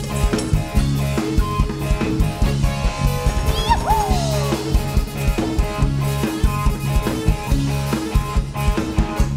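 Live band playing a pop song: a steady drum-kit beat with kick and snare over a sustained bass line and keyboard chords, with a brief sliding note about four seconds in.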